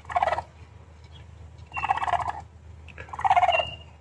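Baby raccoon crying from inside a hay baler: three short rasping, chittering calls about half a second each, some opening with a thin high squeak.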